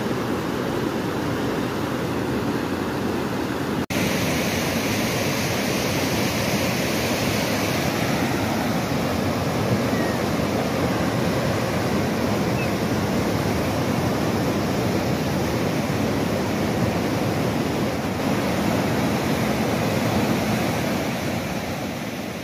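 Fast floodwater of a swollen mountain river rushing over rocks, a steady, unbroken rushing noise, with a momentary drop-out about four seconds in where the recording cuts to another shot.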